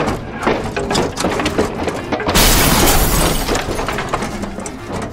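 Plastic toy ambulance (Mattel WWE Wrekkin Slambulance) rattling as it is rocked about, then a loud crash about two and a half seconds in as it tips over and its breakaway panels, doors and stretcher pop off.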